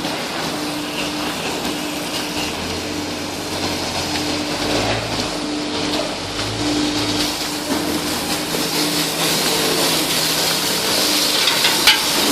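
Heavy construction machinery running steadily, with a low beep repeating a little faster than once a second and a deeper engine hum swelling briefly in the middle.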